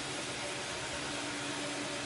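Steady machine noise: an even hiss with a faint hum under it, unchanging throughout.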